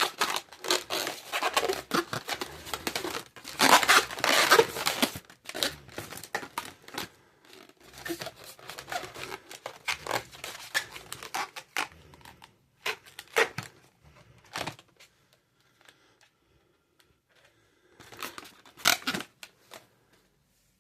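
Latex modelling balloons being handled and twisted, the rubber rubbing and crinkling against itself: dense for about the first twelve seconds, then only a few short separate bursts.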